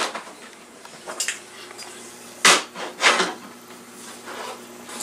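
Knocks and clatter of stiff cowhide leather being spread out on a folding worktable and a metal T-square set down on it. There are several separate knocks, the loudest about halfway through.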